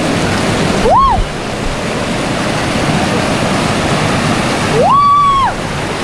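Rushing river water, a loud steady wash. Two short high calls rise and fall in pitch over it, about a second in and again near the end.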